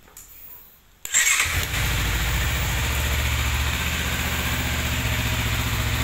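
Honda CBR250RR's parallel-twin engine starting about a second in, catching at once and settling into a steady idle.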